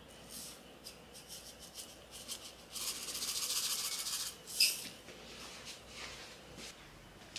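Pastry brush dabbing and rubbing oil onto the seaweed wrap of a gimbap roll in soft strokes, then sesame seeds poured from a small container pattering onto the roll for about a second and a half. A short sharp tap comes just after the pour.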